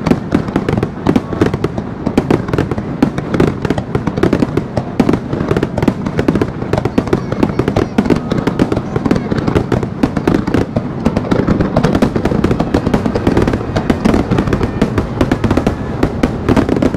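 Fireworks finale barrage: aerial shells bursting over the sea in a dense, unbroken run of bangs and crackles.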